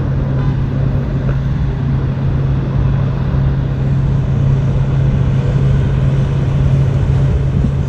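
A motor vehicle's engine idling with a steady low hum over street traffic noise.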